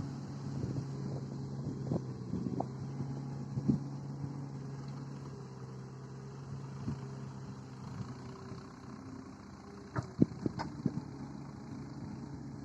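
Heavy machinery engine running steadily at a low, even pitch, with scattered sharp knocks and clanks and a cluster of them about ten seconds in.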